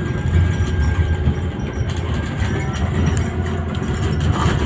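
Inside a Scania Citywide CNG city bus on the move: the steady low rumble of its five-cylinder compressed-natural-gas engine under road and cabin noise.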